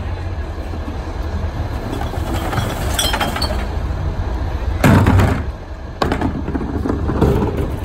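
Garbage truck engine running steadily while glass clinks and breaks, with a loud crash about five seconds in.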